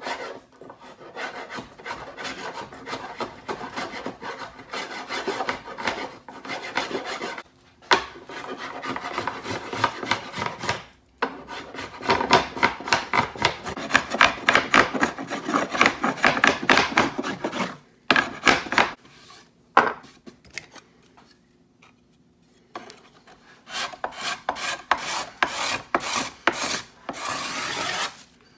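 A hand tool rasping wood off a wooden bow limb in quick back-and-forth strokes, thinning the limbs during tillering. The strokes stop briefly a few times, with a longer pause about two-thirds of the way through before they pick up again.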